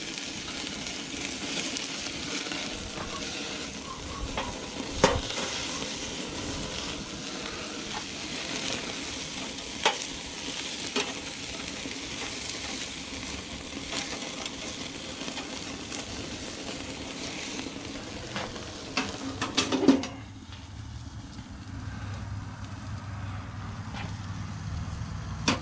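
Hamburger patties sizzling over flaring charcoal on a small kettle grill, a steady hiss broken by occasional sharp clicks and pops. About twenty seconds in a clatter of metal as the grill lid is shut, after which the sizzling goes on as a quieter, muffled hiss.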